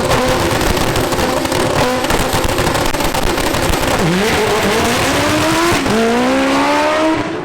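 Front-wheel-drive drag car engine at full throttle on a pass, its pitch dropping sharply at upshifts about four seconds and six seconds in and climbing again after each.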